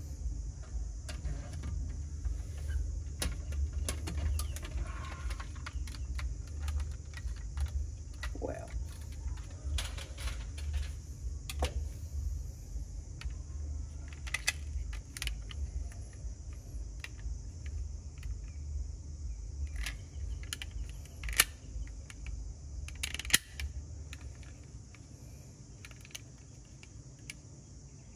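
Diecast metal toy SUV being handled, with scattered small clicks and taps as its tailgate and doors are opened and shut, over a low rumble of handling that fades a few seconds before the end. Two sharper clicks stand out about two-thirds of the way through.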